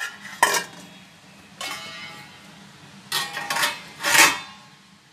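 Stainless steel steamer pot parts, a lid and a perforated steamer tray, clanking and scraping together as they are handled, in several separate metallic clatters with a short ring.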